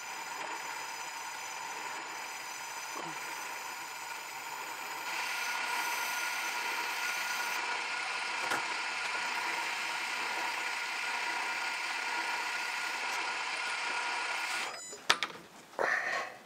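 Myford lathe running steadily with a light rubbing hiss from an abrasive pad held against the spinning piston, deburring the edges of newly cut ring grooves. Near the end the running sound drops away with a couple of clicks as the lathe is stopped.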